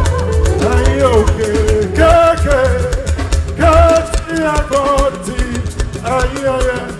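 Live church praise music: a Yoruba praise song sung over drums, with a steady low bass note under the first half.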